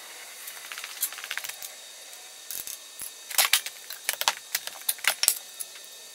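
Manual sheet-metal folder at work. Light metallic clicks come first as a small metal piece is set under the clamp bar. Then, through the middle and latter part, a run of sharp metal clanks and rattles as the folder is worked and the piece is folded.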